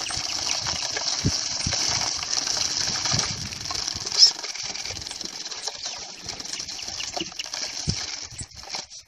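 Small wooden bird cage being handled, with scattered clicks and knocks from its wooden bars and little doors, over a steady high-pitched hiss. One sharp high chirp stands out about four seconds in.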